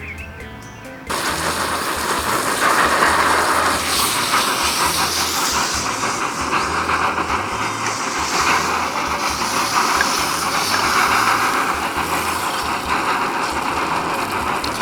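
Ribeye steak sizzling in a hot pan of fat, a loud steady hiss that starts abruptly about a second in.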